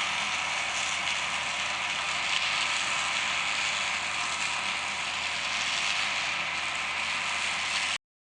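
Combine harvester working a soybean field, a steady mechanical rattle and hiss with a faint low engine hum underneath; it cuts off suddenly near the end.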